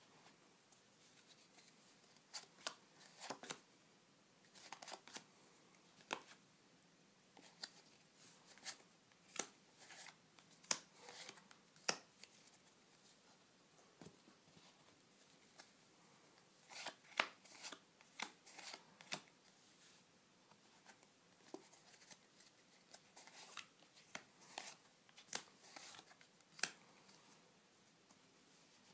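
Playing cards being handled and laid into piles on a carpet: irregular, faint snaps and rustles of card on card, often one or two a second with short pauses between.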